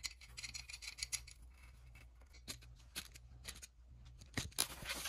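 Scratching, rubbing and small clicks of hand work at the oil fill hole of a floor jack's hydraulic unit, as a cable tie used as a dipstick and the fill plug are handled. The clicks run irregularly, with a louder cluster near the end.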